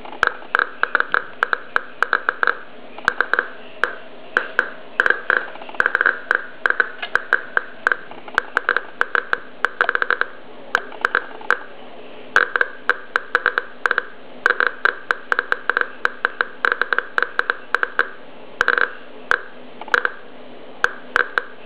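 Eberline ESP-2 radiation survey meter's speaker clicking at random intervals, sometimes in quick clusters, each click a counted event from its scintillation probe. The count rate runs at about five to eight clicks a second from a dried-mushroom sample.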